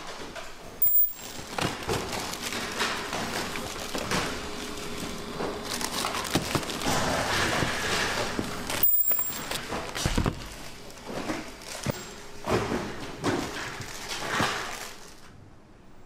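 Irregular knocks, taps and clatter of hand work on small parts. The sound drops out briefly about one second in and again about nine seconds in, and fades away about a second before the end.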